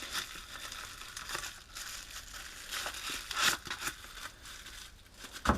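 Plastic packaging crinkling and rustling as it is handled and pulled off a utility knife, with scattered small clicks. A sharper knock comes near the end.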